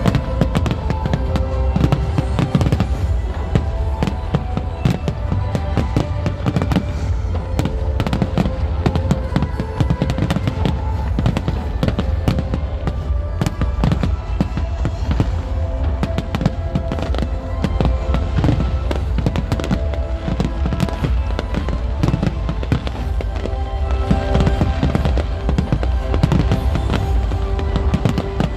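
A dense, continuous barrage of firework bursts and crackling, with many sharp cracks layered over a deep rumble of shell explosions. Music plays along with the display.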